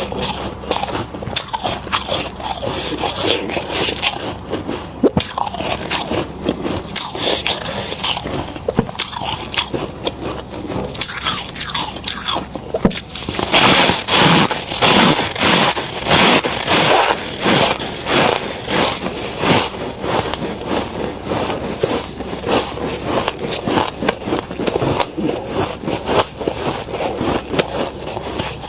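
Freezer frost crunching: a dense run of crisp, crackly crunches, loudest and thickest about halfway through.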